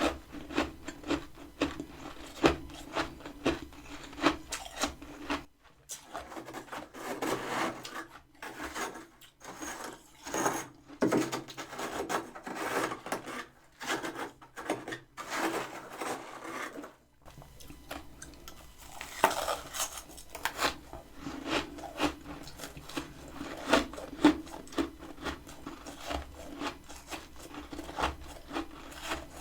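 Freezer frost being scraped and crunched, a dense run of short, crisp crunches and rasping scrapes. A steady low hum sits underneath, dropping out for several seconds in the middle.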